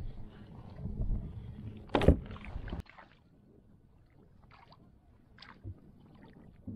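Rumbling handling noise and knocks on a plastic kayak while a freshly landed mullet is held, with one sharp knock about two seconds in. It cuts off abruptly near three seconds in, leaving only a few faint ticks.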